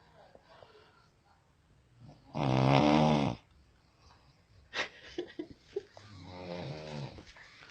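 A sleeping person snoring: two long, rasping snores, the first loud and the second quieter and slightly longer, with a few short clicks between them.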